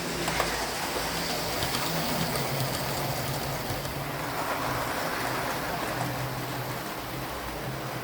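Hornby OO gauge Battle of Britain class model locomotive running along the track on DC, its small motor giving a steady, slightly wavering hum over running noise, with a few light clicks.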